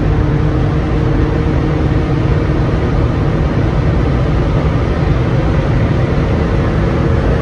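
Cabin noise of a fifth-generation Honda Prelude cruising at motorway speed: a steady engine drone under low road and tyre rumble.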